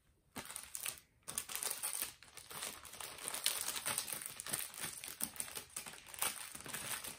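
Packaging crinkling and rustling as craft-kit pieces are handled and pulled out of an opened activity pack, starting after a brief pause and running on as a dense crackle.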